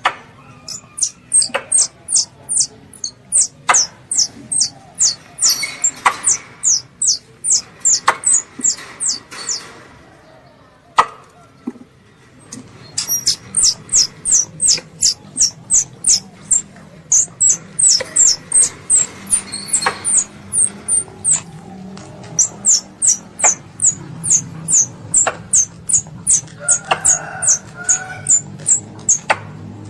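Young squirrel calling for its mother: a fast series of short, high-pitched chirps, about three a second. The chirps stop for about three seconds near the middle, then resume.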